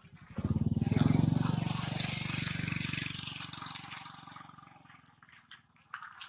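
A motor vehicle engine going past close by: it comes in suddenly about half a second in, is loudest around a second in, and fades away over the next few seconds.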